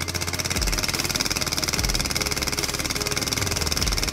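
Small 3D-printed compressed-air engine, a copy of Tom Stanton's early prototype, running at high speed and driving a propeller. It makes a rapid, even stream of air exhaust pulses with a steady hiss.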